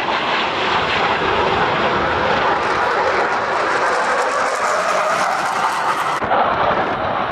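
Boeing F/A-18 Super Hornet jets, powered by GE F414 turbofan engines, flying past in a pair with a steady, loud jet roar. A harsher high hiss builds from about three seconds in and drops away suddenly near the end.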